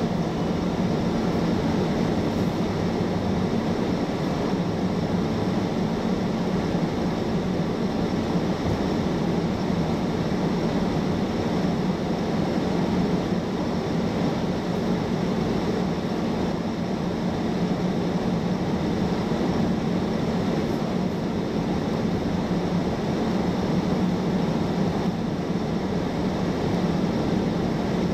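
Steady drone and rush of a moving vehicle, unchanging throughout.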